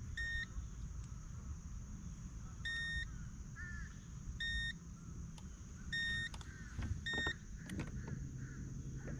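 Short electronic beeps from a device on a fishing boat: about five single beeps at uneven gaps, over a low steady hum.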